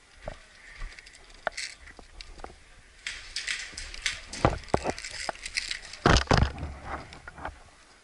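Scattered sharp clicks, clacks and knocks of a player moving with airsoft gear: footsteps and kit rattling. It is sparse at first and busier after about three seconds, with a heavy knock about six seconds in as the loudest sound.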